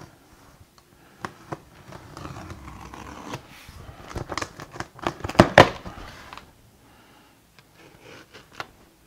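An X-Acto craft knife slicing through packing tape along the seams of a cardboard box, heard as a run of short scratching cuts; the loudest strokes come about five and a half seconds in. Near the end the cut cardboard flaps are pulled up.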